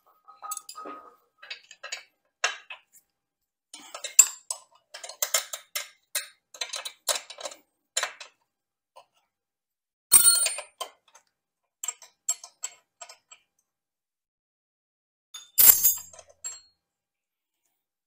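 Wrenches clinking and ticking on metal as the 13 mm chain-adjuster lock nuts on a motorcycle swingarm are loosened. Runs of light clicks, with two louder metallic clanks about ten seconds in and near the end.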